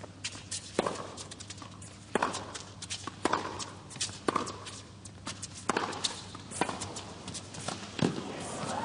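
Tennis rally on a hard court: racquets strike the ball in turn, about seven sharp pops roughly a second and a quarter apart, with players' shoes scuffing and squeaking between shots.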